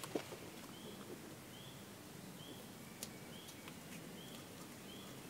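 A bird repeating a short, high chirp about once a second, faint over a quiet background.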